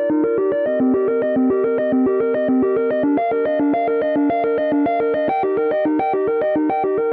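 iPhone iOS 17 alarm tone playing: a rapid, evenly paced stream of short synthesized keyboard notes, its melody pattern shifting a couple of times.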